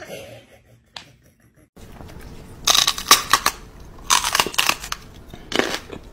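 Loud crunching noises in several irregular bursts, beginning about three seconds in.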